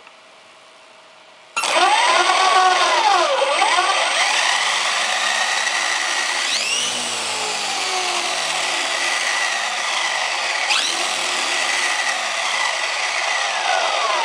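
Electric motor and drivetrain of an electric-converted HPI Baja 5T 1/5-scale RC truck running hard with the wheels spinning at speed: a loud whine with a dense gear and tyre rush that cuts in suddenly about a second and a half in, after a faint steady hum. The pitch glides up and down with throttle and starts to fall near the end as it winds down.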